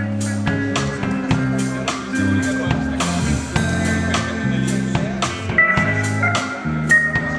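Rock band playing live: electric guitars and electric bass over a Gretsch drum kit keeping a steady beat with cymbal hits. The bass line moves every half second or so, and held high guitar notes ring out in the second half.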